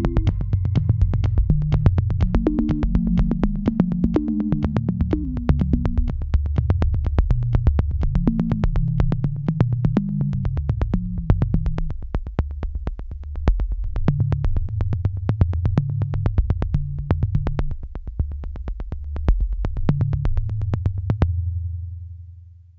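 Electronic background music: a synthesizer bass line over a steady clicking beat. Near the end the beat stops and a last low note fades out.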